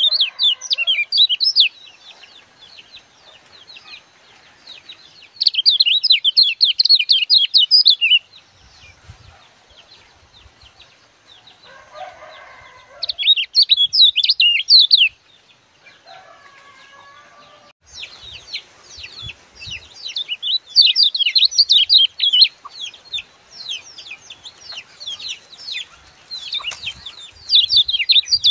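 Caged kecial kuning songbird singing its rapid, high chattering 'ciak-ciak' song in loud spells: briefly at the start, again about 5 to 8 seconds in and 13 to 15 seconds in, then a long spell through the second half.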